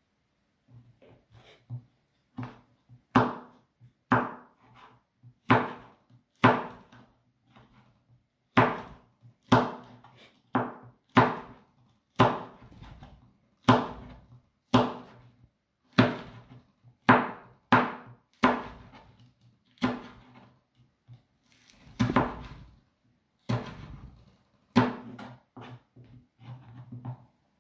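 Kitchen knife slicing fresh red chili peppers on a plastic cutting board: a string of irregular, sharp taps, about one or two a second, as the blade comes down through the chili onto the board.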